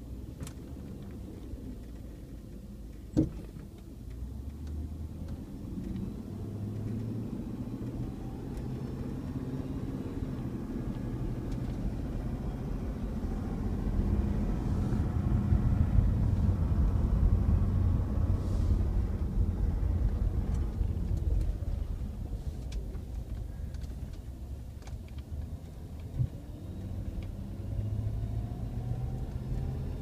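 Cabin sound of a 1999 Jeep Grand Cherokee V8 driving: engine and road noise that builds to its loudest midway and then eases off, with a sharp click about three seconds in. The owner suspects a very subtle gargling, clacking whine from the transmission, which comes only in 2nd gear and up while the engine is cold.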